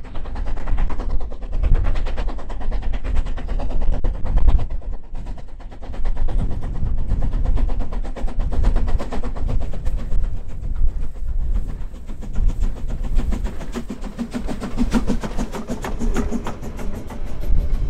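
Harz narrow-gauge DR Class 99.23–24 2-10-2 steam tank locomotive working a train past at close range. Its exhaust beats come fast and loud over a deep rumble, and the coaches' wheels clatter by on the track near the end.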